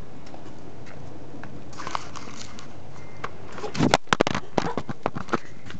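Handheld camera being fumbled and dropped. Rustling handling noise on its microphone, then a cluster of sharp knocks and clatters about four seconds in, followed by a few lighter knocks.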